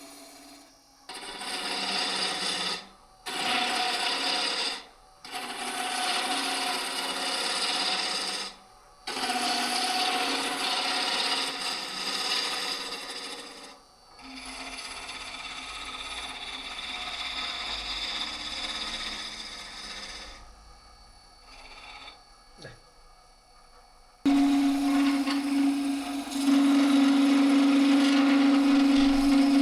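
Wood lathe turning a wooden chair leg, with a tool or abrasive scraping the spinning wood in a rasping sound. There are four passes with brief stops in the first half and a quieter stretch in the middle. About three-quarters of the way in, a louder cut starts suddenly over a steady hum.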